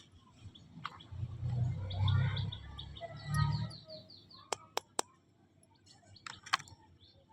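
Small birds chirping in the background, with a quick run of high chirps a little after the middle. Dull low thumps come in the first half, and four sharp clicks follow, three close together and one a couple of seconds later.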